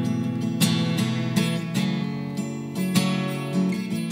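Acoustic guitar played solo in slow strummed chords, with a firmer strum roughly every half second and the chords ringing between.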